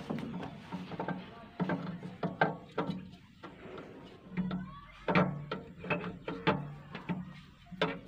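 Sharp clicks and knocks of hands working at a backhoe engine's alternator and its wiring connector, with people talking indistinctly through it.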